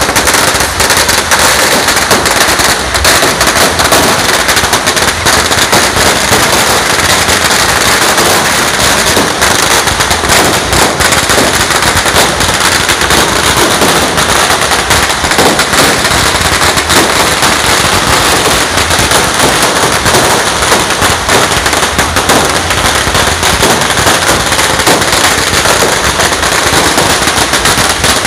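Fireworks and firecrackers going off in a dense, unbroken crackle of rapid bangs, loud throughout with no pause.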